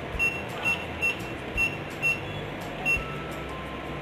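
BNI ATM keypad beeping with each key press as a phone number is keyed in: six short high beeps at uneven intervals of about half a second.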